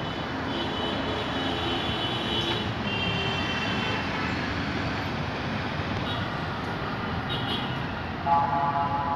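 Steady rush of road traffic from passing vehicles. Near the end a louder pitched sound cuts in suddenly.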